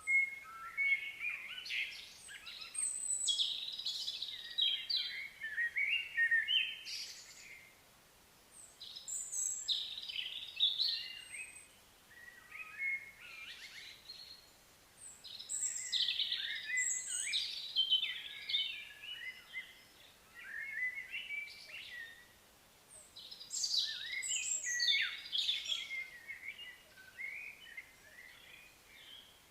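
Small birds singing in repeated bursts of quick, chirping song phrases, with short pauses between the bursts.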